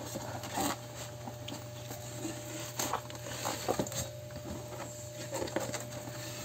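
Cardboard box being handled: scattered taps, scrapes and rustles of cardboard as the carton and its flaps are moved and lifted, over a steady low hum.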